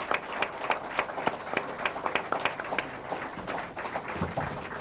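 Audience applauding: many quick, uneven handclaps, with single claps near the microphone standing out.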